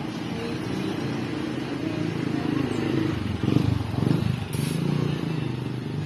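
Street traffic: a motorcycle tricycle with a sidecar drives close past about three to four seconds in, its small engine growing louder and then fading, over a steady engine hum.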